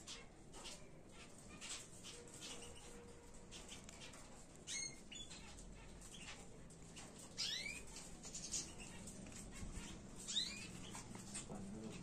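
Small cage finches, goldfinches and canaries, calling faintly in an aviary: scattered short chips, with a few sweeping call notes about five, seven and a half, and ten seconds in.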